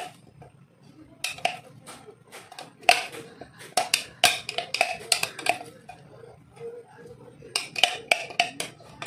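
Irregular knocks and taps from a plastic mini-chopper bowl being shaken and tapped to empty finely chopped carrots into a glass dish, starting about a second in.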